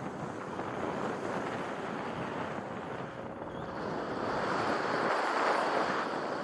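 Airflow rushing over the microphone of a camera on a paraglider in flight just after launch: a steady, noisy rush that grows louder past the middle.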